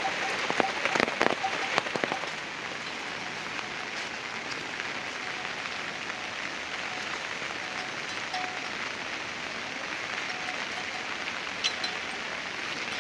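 Heavy rain falling steadily as an even hiss. For about the first two seconds, louder close drops or drips strike among it.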